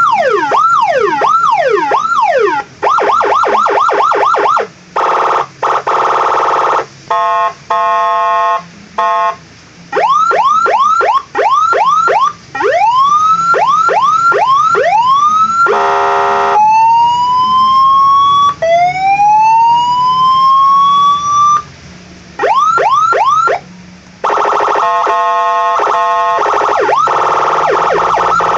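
Electronic vehicle siren with 12 tones, cycling through its preset sounds. It plays fast repeated yelp sweeps, a steady buzzing horn tone that pulses on and off, slow rising wails, and quick warbles, switching to a new tone every few seconds.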